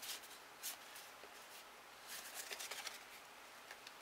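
Faint rustling and light flicks of trading cards being handled and sorted by hand, with a few soft ticks clustered around two to three seconds in.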